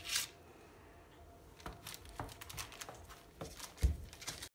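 Kitchen knife cutting down through soft layered dough onto parchment paper over a metal tray: a short rustle of the paper, then scattered light taps and scrapes of the blade, the loudest a dull knock near the end.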